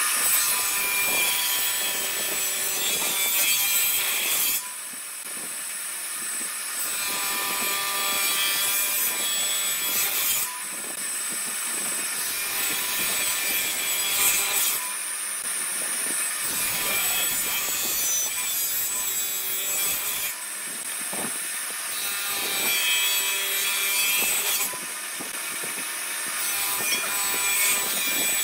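Table saw running and ripping along small wooden sticks: a steady whine from the spinning blade with the rasp of the cut. The sound changes abruptly several times.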